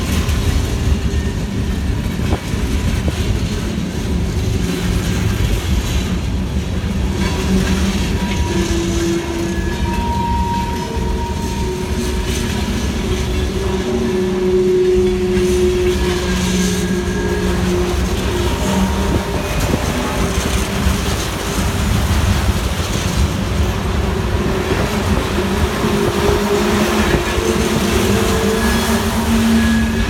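Freight train's boxcars and flatcars rolling past close by: a steady rumble of steel wheels on the rails, with thin wheel squeals that come and go.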